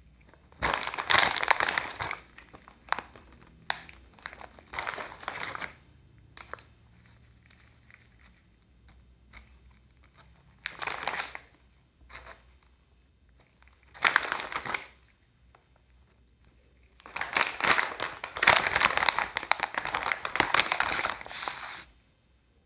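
Plastic Cheetos snack bag crinkling in about five separate bursts as hands reach into it and move it. The longest burst, lasting about five seconds, comes near the end.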